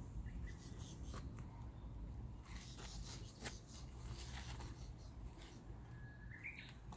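Faint rustling with a few small clicks and snaps as grapevine shoots are handled and their tendrils pulled off. A short rising chirp sounds near the end.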